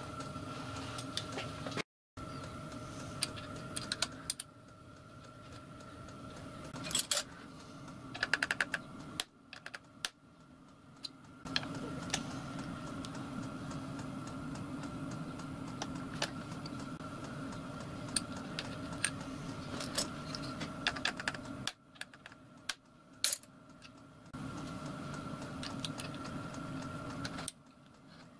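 Scattered sharp metallic clicks and light taps of small steel number punches and tooling being handled in a clamped steel fixture, over a steady workshop hum.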